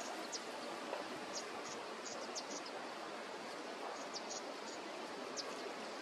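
Outdoor ambience: a steady hiss with short, high chirps scattered through it, a few each second.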